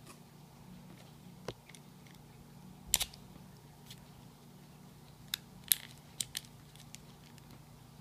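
Sharp plastic clicks from a combination trigger lock as its two halves are handled and fitted together: a single loud click about three seconds in, then a quick cluster of clicks from about five to seven seconds. A low steady hum sits underneath.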